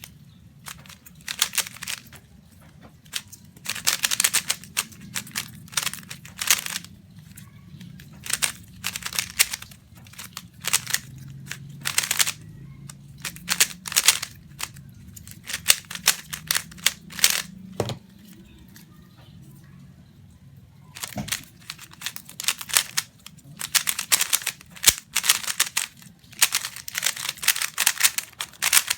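Meilong 3x3 speedcube being turned fast in a solve: rapid flurries of plastic clicking from the layers snapping round, with short pauses between bursts and a longer pause about two-thirds of the way through.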